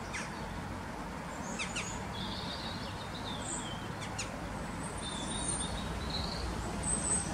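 Small birds chirping in short calls and quick sweeps, several times, over a steady low rumble of outdoor background noise.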